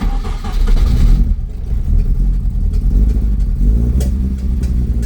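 Mk1 Ford Escort's four-cylinder engine starting from cold and running, its revs rising and falling a little.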